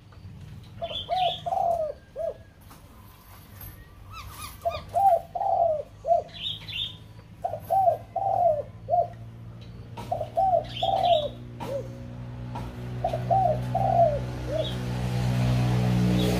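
A caged laughingthrush (khướu đầu bạc) singing: five short phrases of three or four clear whistled notes, a couple of seconds apart, with thinner high notes above them. A low hum swells under the song over the last few seconds.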